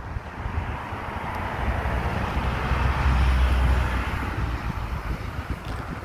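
A car passing by: a rushing tyre and engine noise with a low rumble that builds to a peak about three seconds in and then fades.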